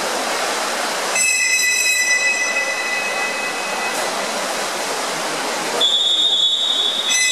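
Two long shrill whistle blasts over the echoing hubbub of an indoor pool hall: the first starts about a second in and lasts about three seconds, the second is higher and starts near the end.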